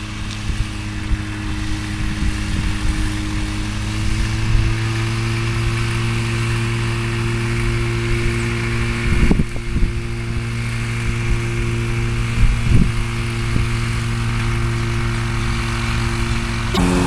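Light aircraft's small piston engine running steadily at low power. Its pitch edges up a little about four seconds in and rises as it revs near the end, with a few brief knocks in between.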